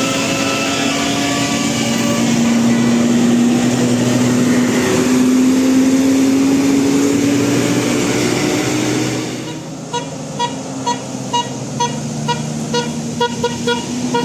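Telolet musical horn on a heavy vehicle: a long held low horn tone over road noise, then, about ten seconds in, a run of about a dozen short, higher toots at roughly two a second, quickening near the end.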